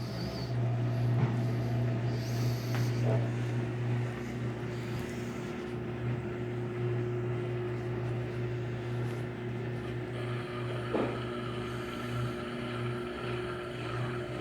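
Consul washing machine in its spin cycle: motor and drum, loaded with double bedsheets, running with a steady hum.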